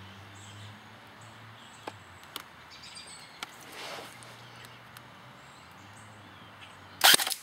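M1A1 Thompson airsoft electric gun (AEG) firing one short shot through a chronograph about seven seconds in, a brief sharp burst of gearbox and air. Before it, faint birds chirping.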